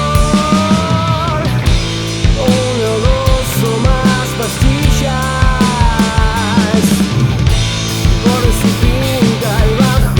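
Rock band playing: drum kit hits at a steady beat under bass and guitars, with a melodic lead line that slides and bends in pitch.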